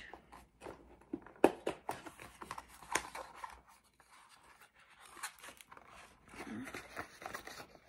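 Small cardboard perfume box being opened by hand: its flaps rustle and scrape, with scattered faint clicks and a few sharper ticks.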